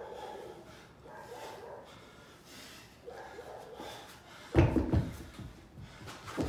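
A pair of 50-pound hex dumbbells dropped onto rubber gym flooring about four and a half seconds in, landing with a heavy thud and a couple of quick knocks as they settle. A lighter thump follows near the end.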